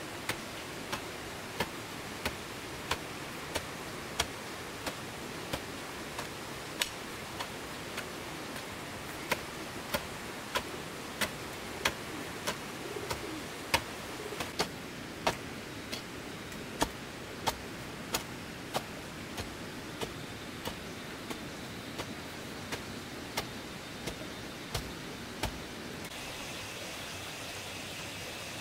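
Steady rain hiss with sharp, uneven drip taps, roughly one to two a second, as heavy drops fall on a hard surface.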